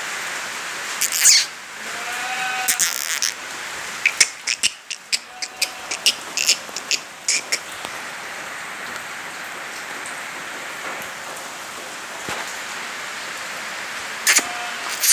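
Goats bleating a few times, the loudest call about two seconds in, over a steady hiss, with a quick run of sharp clicks in the middle.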